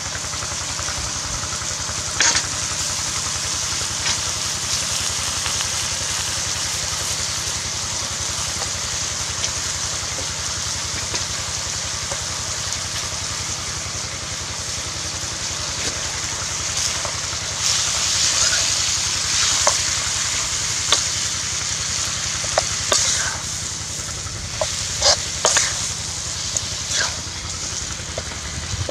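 Duck and vegetables sizzling steadily in a hot metal wok. In the second half a metal spatula scrapes and clicks against the pan as the stir-fry is stirred.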